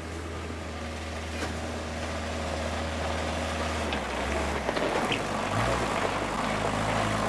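Engine of a small homemade open vehicle running as it drives toward the listener, growing steadily louder, its note shifting about four seconds in.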